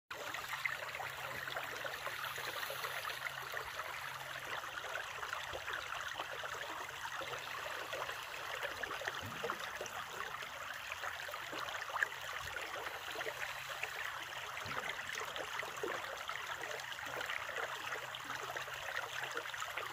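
Small woodland creek running over rocks, a steady rush and splash of water.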